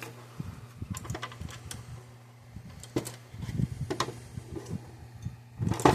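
Irregular small metallic clicks and knocks of a screwdriver and parts being handled while screws are taken out, over a steady low hum.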